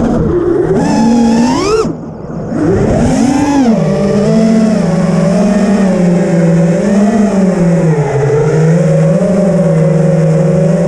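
Brushless motors and tri-blade props of an FPV freestyle quadcopter (BrotherHobby R3 2207 2550kv motors, HQ 5x4.3x3 props), heard from the onboard camera: a buzzing whine whose pitch rises and falls with the throttle. About two seconds in the throttle is cut and the sound drops briefly. It then punches back up and holds a fairly steady, slightly wavering pitch.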